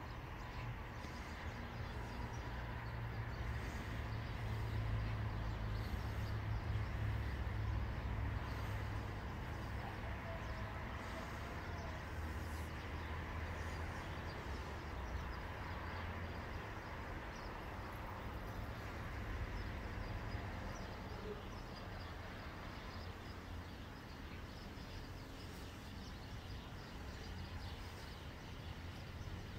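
Outdoor background noise: a steady low rumble, loudest about four to nine seconds in.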